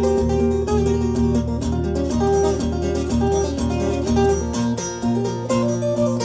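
Solo acoustic guitar fingerpicked in a busy instrumental break: a quick melody line of plucked notes over a low bass note struck again and again. The bass changes to another note about four and a half seconds in.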